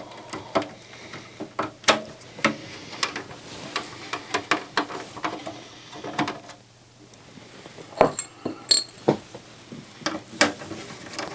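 Handling of small metal parts during disassembly of a satellite receiver: a string of sharp clicks, knocks and clinks from tools, screws and the power supply board, with a short metallic ring about eight or nine seconds in.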